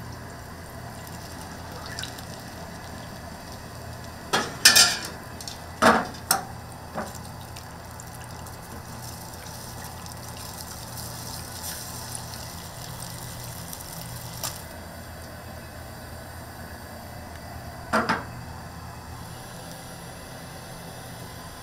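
Restaurant kitchen noise: a steady hiss over a low hum, broken by sharp clatters of kitchenware. There is a cluster of clatters about four to seven seconds in and a double clatter at about eighteen seconds.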